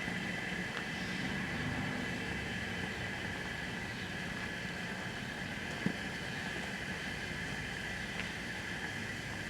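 Microwave oven running: a steady hum with fan noise and faint steady high tones, and one short click about six seconds in.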